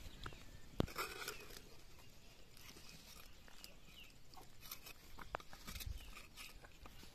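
A dried dough seal is cracked and scraped off a clay handi pot and its lid with a metal scraper: one sharp knock just under a second in, then brief crunching and a few faint scrapes and clicks.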